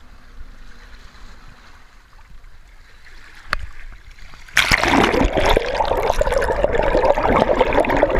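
Water splashing and rushing, starting suddenly about four and a half seconds in and staying loud. Before that it is fairly quiet, apart from a single sharp click.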